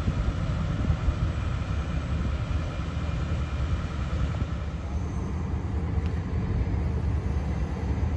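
Fire engine idling steadily, a low rumble with a faint whine above it.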